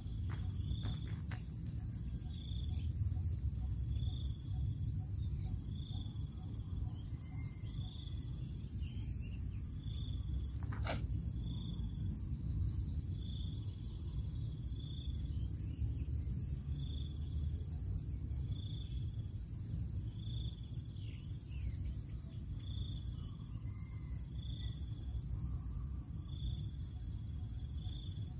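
Rural outdoor ambience: insects buzz steadily while a short high call repeats evenly about every second and a half, over a low rumble. A single sharp click comes about eleven seconds in.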